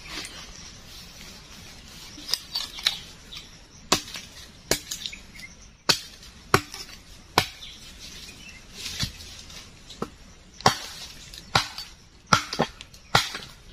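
A blade chopping into wood on a stump: a dozen or so sharp wooden knocks at irregular intervals, roughly one a second.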